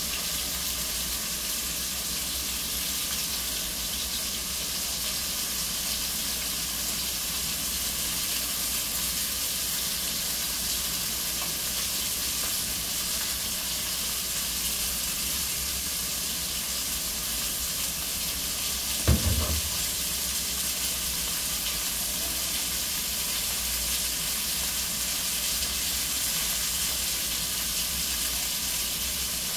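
Hot oil sizzling steadily in a cast-iron skillet as food fries. One short low knock about two-thirds of the way through.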